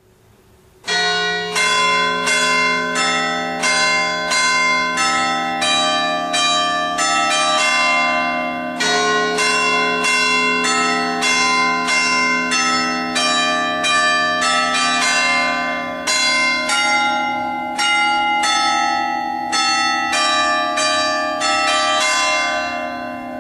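Church bells pealing: several bells of different pitch, swinging on their wheels, striking in an uneven succession of roughly one and a half strokes a second, each stroke ringing on into the next. The peal starts suddenly about a second in and grows quieter near the end.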